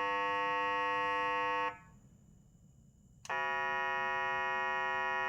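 Fetal Doppler's acoustic stimulator (fetal wake-up buzzer) sounding a steady electronic buzz that cuts off after under two seconds. After a short pause a second steady buzz at a different pitch starts: the two stimulator settings, AST1 and AST2, tried in turn.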